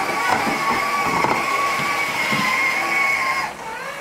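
Electric motor of a battery-powered toy ride-on quad whining steadily as it drives over a hardwood floor. It cuts out briefly near the end and whines back up as it starts again.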